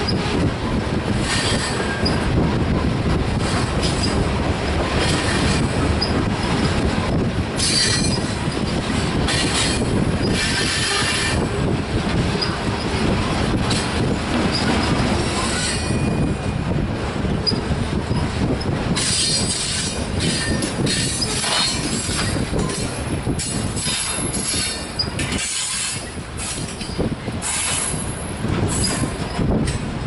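Loaded covered hopper grain cars rolling past on a curve: a steady rumble of steel wheels on rail, with high-pitched wheel squeal coming and going.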